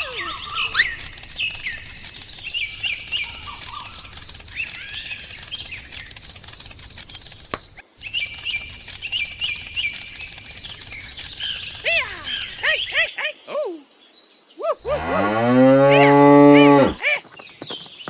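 A cow moos once near the end, one long call of about two seconds that rises and falls in pitch, the loudest sound here. Before it comes a stretch of many short, high chirps.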